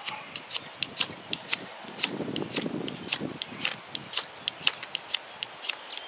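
Ferrocerium rod scraped hard and fast with a metal striker to throw sparks into a palm fiber tinder bundle: a run of sharp scrapes, about three a second.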